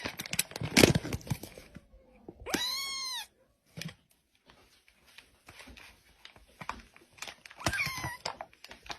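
A cat meows once, a drawn-out call that rises and then falls in pitch, about two and a half seconds in. Before it come scattered sharp clicks and knocks, the loudest about a second in. Short wavering cries follow near the end.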